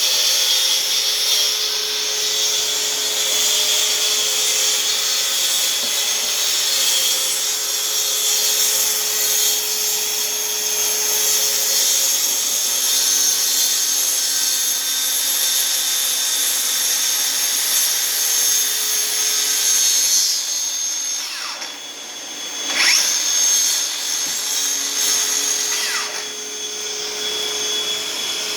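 Bosch GKT 18V-52 GC cordless plunge saw and Bosch GAS 18V-L vacuum extractor running together in a steady high motor whine. About 21 seconds in the whine falls away, then rises and falls again, with another brief glide a few seconds later.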